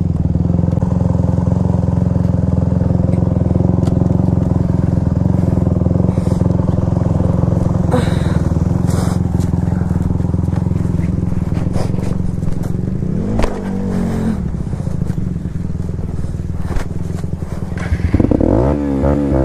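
Dirt bike engine running at low speed as the bike is ridden slowly along a wooded trail, its pitch rising and falling briefly about two-thirds of the way through and again near the end.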